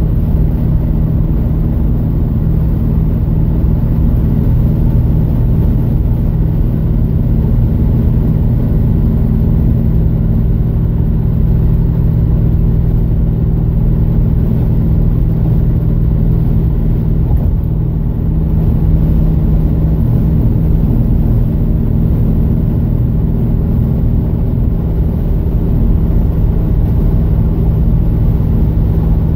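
Plymouth Scamp cruising at steady highway speed, heard from inside the cabin: a constant low engine hum over tyre and road rumble, with no change in pitch.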